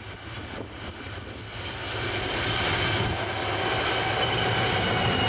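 Pacific National NR class diesel-electric freight locomotives (GE Cv40-9i) approaching, their diesel engines droning steadily with a high whine above, growing louder over the first couple of seconds as the lead unit draws level.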